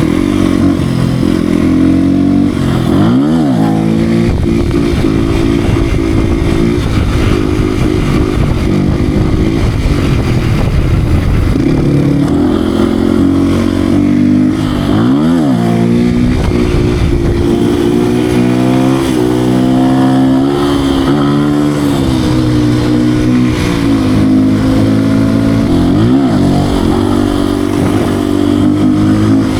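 Beta RR 125 R supermoto's single-cylinder 125cc engine under way, its note rising and falling with the throttle, with three brief sharp drops and recoveries in pitch spread through the run.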